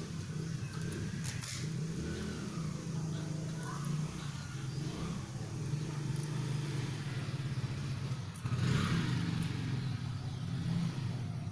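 A steady low mechanical hum, a little louder about two-thirds of the way through.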